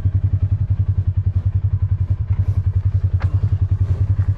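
Side-by-side utility vehicle's engine idling with a steady, evenly pulsing low throb, and a faint click about three seconds in.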